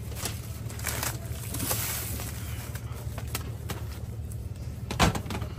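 Plastic grape-packing bags crinkling and rustling as they are opened and handled, with scattered small clicks over a steady low rumble. A single sharp knock comes near the end.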